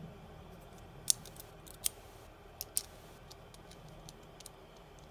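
Small sharp metallic clicks and taps of opened-up UFO fidget spinner parts being handled, a handful of them at uneven spacing, the loudest about a second in and just before two seconds.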